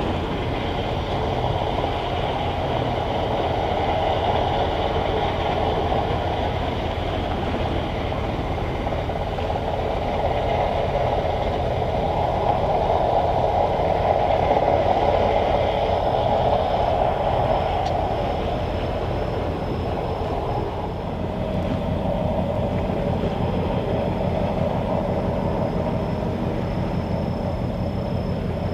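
Steady mechanical running noise, a low rumble with a hiss over it, swelling slightly midway. A thin high whine joins partway through.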